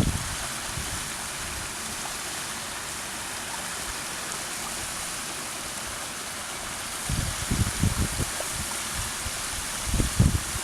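Waterfall rushing steadily, with low gusts of wind buffeting the microphone at the start and again in the last few seconds.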